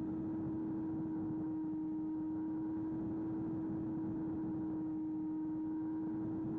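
Small electric-powered FPV flying wing in cruise flight, heard onboard: one unchanging motor-and-propeller hum at steady throttle over rushing airflow noise.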